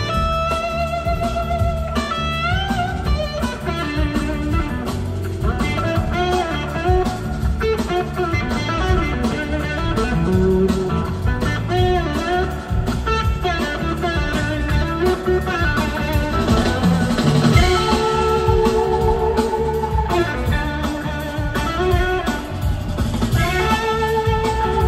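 Live blues-rock band playing an instrumental jam: an electric slide guitar carries the lead with gliding, wavering notes over drums, bass and keyboards.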